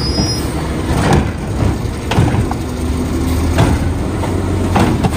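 Natural-gas Waste Management automated side-loader garbage truck running at idle while its hydraulic arm lifts a green cart and tips it over the hopper, with several clunks and knocks about a second apart.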